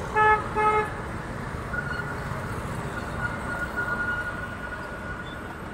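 Steady street traffic noise with a vehicle horn giving two short toots in the first second.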